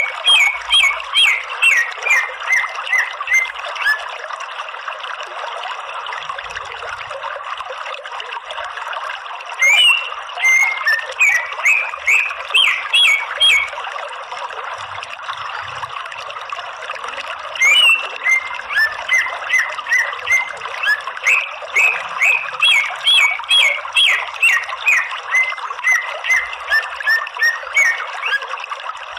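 Cucak ijo (green leafbird) calling in rapid series of sharp repeated notes, about three a second, in three bouts. The last bout is the longest. This is a lure call meant to get other cucak ijo to answer. Behind it is a steady background of running water.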